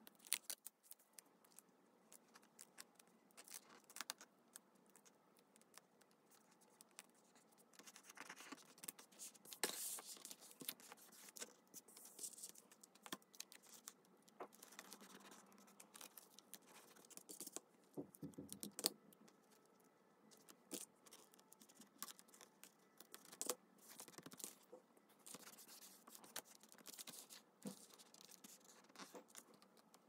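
Faint, scattered taps, rustles and scratches of paper and small crafting tools being handled while making a mixed media journal.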